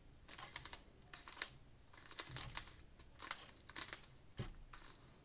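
Plastic clicking of a Rubik's cube's layers being turned in quick bursts, a run of face turns carrying out a move sequence to place a corner piece.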